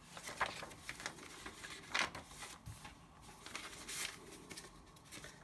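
Paper pages and cards of a handmade journal rustling as they are turned and handled, with a few sharper rustles.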